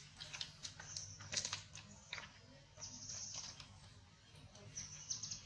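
Faint outdoor ambience: high-pitched chirping that comes and goes in short spells, with light scattered rustles and taps.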